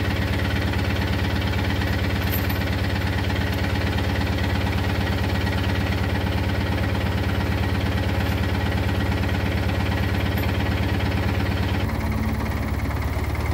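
Minitractor engine idling steadily, with a slight shift in tone near the end.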